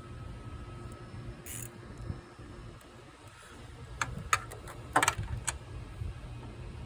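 Hand tools clicking and clinking against metal: a cluster of sharp clicks from about four seconds in, over a low steady hum.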